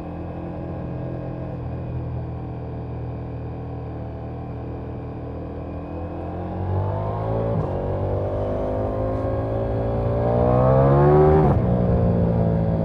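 Ducati Diavel V4's V4 engine and exhaust, heard from the rider's seat, running steadily at part throttle. About six seconds in it is opened up, and its pitch and loudness climb. The pitch falls sharply at an upshift near the end.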